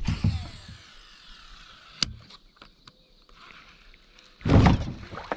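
A cast with a fishing reel: a sudden whoosh and the spool's whir falling in pitch over about a second, then a sharp click about two seconds in. A loud low bump follows about four and a half seconds in.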